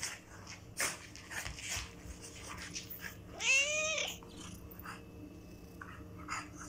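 A cat meows once, about three and a half seconds in: a call of nearly a second that rises and then falls in pitch. Around it are short scuffling and tapping sounds of the pets playing on a hard floor.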